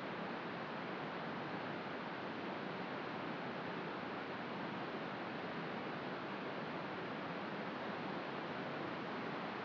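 Helmcken Falls' plunging water making a steady, unbroken rushing noise, even throughout with no separate sounds standing out.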